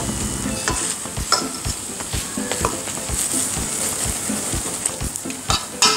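Paratha frying with a steady sizzle in a nonstick pan, with a metal spoon tapping and scraping against the bread and pan. The taps are loudest near the end.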